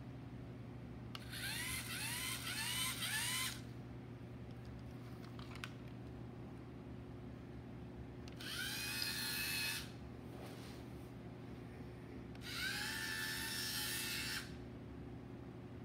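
LEGO Mindstorms EV3 robot's electric drive motors whirring in spurts as it is steered by remote: a few short whines rising in pitch about a second in, then two longer runs near the middle and near the end that rise and hold a steady pitch.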